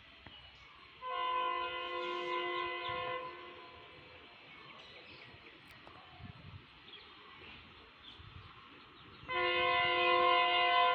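Locomotive horn of an approaching train, sounded in two long blasts of about two seconds each, the second starting about nine seconds in.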